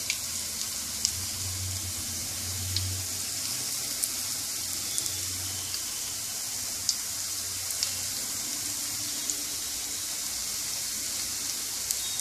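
Drumstick flower pakoras deep-frying in hot mustard oil: a steady sizzle with scattered pops and crackles.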